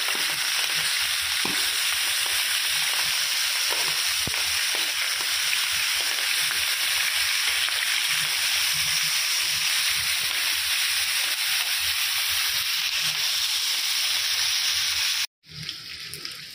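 Chicken pieces frying in hot oil in a non-stick pan: a steady, dense sizzle and crackle. It cuts off abruptly about fifteen seconds in, then comes back quieter.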